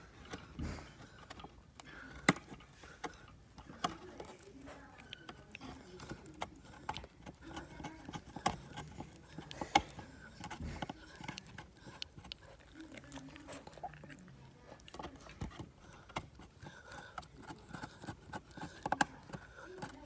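A three-month-old Shiba Inu puppy's teeth gnawing and scraping on the edge of a wooden bowl stand, teething: irregular clicks and scrapes, with two sharper clacks about two and ten seconds in.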